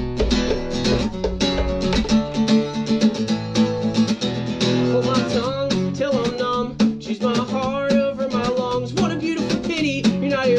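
Acoustic guitar strummed in a steady rhythm. About halfway through, a voice starts singing along.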